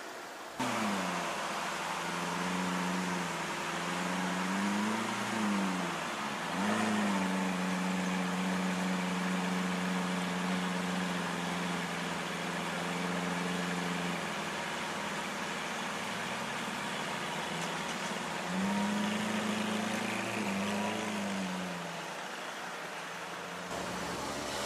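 Sports car engines in street traffic, their revs rising and falling several times, with a steady held engine note in the middle.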